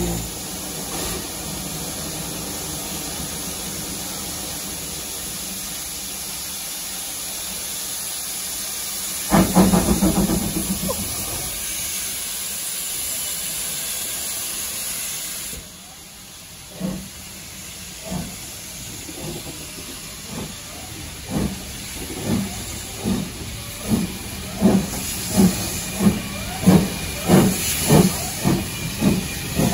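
Standing GWR Hall-class steam locomotive hissing steadily, with a louder burst of steam about nine seconds in. After a cut, an LMS Ivatt 4MT 2-6-0 steam locomotive pulls away with its train, its exhaust beats quickening as it gathers speed.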